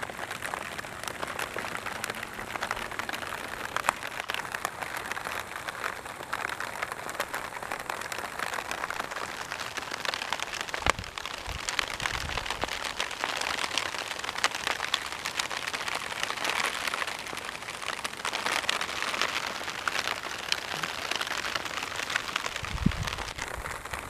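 Steady rain falling on the garden soil and grass, a continuous hiss made of many small drop ticks. There are two brief low bumps, about halfway through and near the end.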